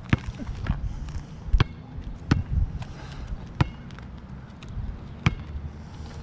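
A basketball bouncing on an asphalt court: several sharp single bounces at uneven intervals, with fainter ones between.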